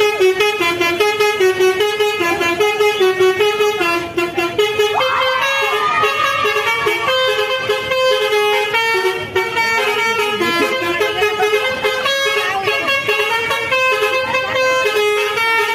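Basuri musical bus horns playing tunes: a continuous run of horn notes stepping up and down in pitch every fraction of a second.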